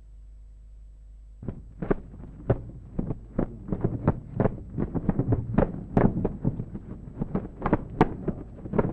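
A low, steady hum, then about a second and a half in a rapid, irregular run of dull thumps and knocks begins, several a second.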